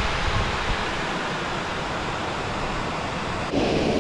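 Steady rushing of water from a river spillway, a constant wash of noise that grows louder about three and a half seconds in.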